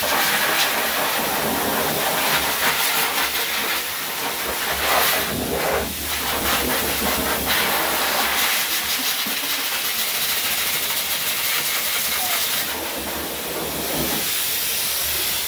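Dog grooming blow dryer blowing air through its hose onto a dog's coat: a loud, steady rushing hiss of air.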